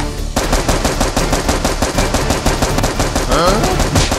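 Rapid automatic gunfire sound effect: one long, even burst of shots that starts about a third of a second in.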